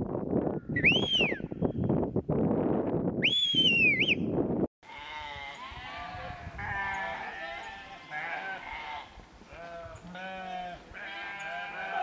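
A loud rushing noise with two long whistles that rise and fall in pitch, then, after a sudden cut about five seconds in, a flock of sheep bleating, many calls overlapping.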